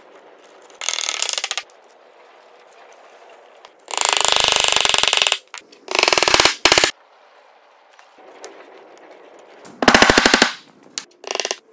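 Hammering on hardwood in five bursts of very rapid knocks, the longest about four seconds in, as the breadboard end is knocked home and pegged.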